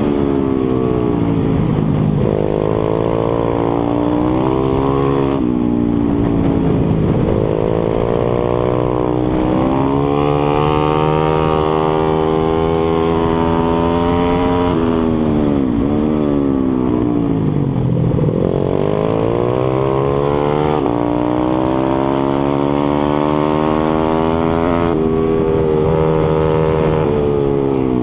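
A 140cc pitbike's single-cylinder four-stroke engine, heard from on board at race pace. It revs up hard through the gears, with a sudden pitch drop at each shift, then falls away when the throttle closes for corners. Its pitch rises and falls over and over.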